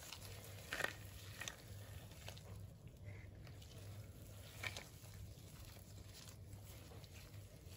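Gloved hands squeezing and kneading raw ground pork with sticky rice for naem (Thai fermented pork): faint, soft, wet squelches, a little louder about a second in and again near five seconds.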